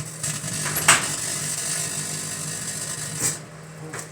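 Microwave oven running with a 9-volt battery burning inside, a steady hum and hiss, with a sharp crack about a second in. A click a little after three seconds, after which the hiss drops away as the oven stops.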